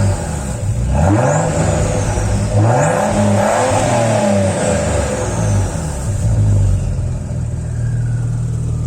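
Audi S4 B5's 2.7-litre twin-turbo V6 being revved in several blips, the pitch climbing and falling, then settling back to idle for the last few seconds. The exhaust is heard with its pre-catalytic converters worn out, which the owner says should be taken into account in the sound.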